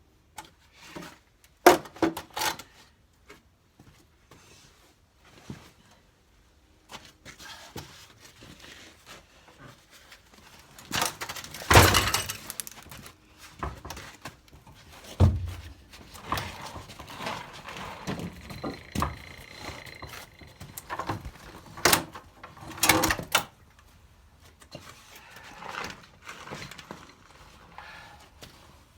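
Irregular knocks, clunks and scrapes of a heavy lawn-tractor transaxle and wooden crates being handled, with a loud impact about twelve seconds in and a deep thud shortly after.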